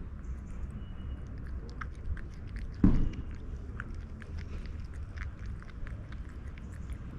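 A stray cat chewing and crunching its food, with many small irregular clicks of bites, over a steady low background rumble. One brief, louder thump comes about three seconds in.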